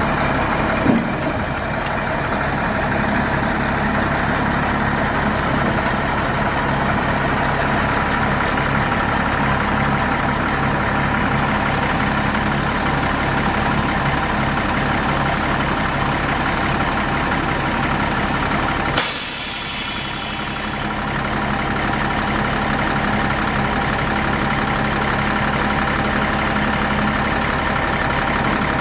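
International 4800 dump truck's diesel engine running steadily while the dump body is worked, with a short loud hiss about two-thirds of the way through.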